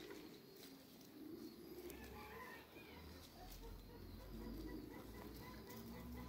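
Faint, soft low calls from Light Brahma chickens, with a few faint higher chirps.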